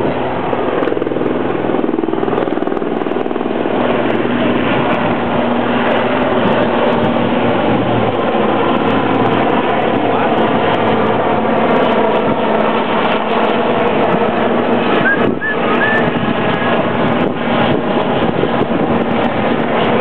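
Helicopter flying overhead at a distance: a steady, loud rush of rotor and engine noise.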